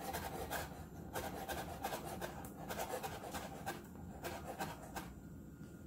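Kitchen knife finely mincing strips of lemon peel on a wooden cutting board: a quick, steady run of knife taps on the board, several a second, that stops about five seconds in.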